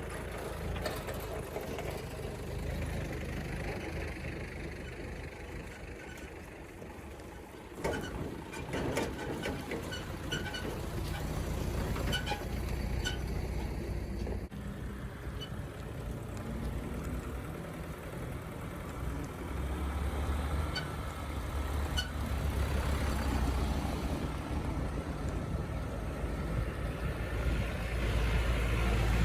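A heavy vehicle's engine running steadily, with a few sharp metallic clanks and knocks about a third of the way in.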